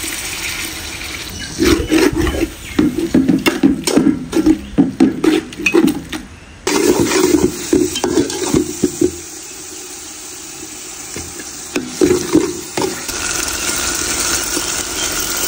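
Slotted metal ladle stirring and scraping thick onion-tomato masala in an aluminium pot, with quick knocks against the pot, over the steady sizzle of the masala frying in oil. The stirring is busiest in the first half and stops about two-thirds of the way in, leaving the sizzle alone.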